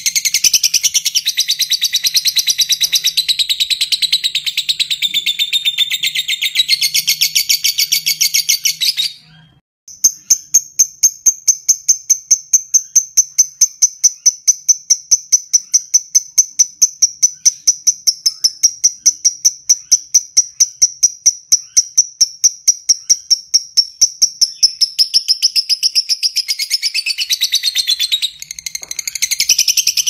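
Fischer's lovebird singing a long ngekek, a rapid, high chattering trill of fast repeated notes. It breaks off briefly about nine seconds in, then runs on as one long, even string of notes for some fifteen seconds before turning more varied near the end.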